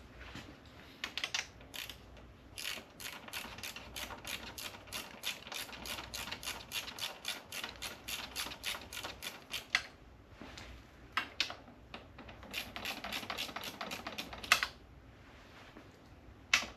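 Hand ratchet clicking, with steady runs of sharp clicks at about five a second as fasteners are worked loose. The clicking comes in two spells, the second shorter, and a couple of louder knocks come near the end.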